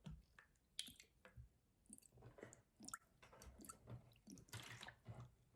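Faint chewing, with small clicks and soft wet mouth sounds scattered through.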